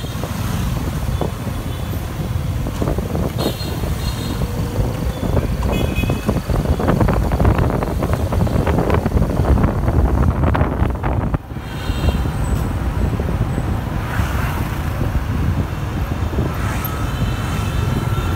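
Wind rushing over the microphone of a moving motorbike and scooter traffic running close by. Short horn toots sound a few times.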